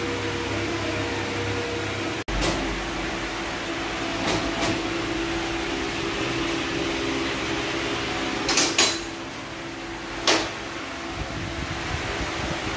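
A steady machine hum, with a few sharp clicks and knocks: one after a brief dropout about two seconds in, two more soon after, a quick cluster about two-thirds through and a last one a little later.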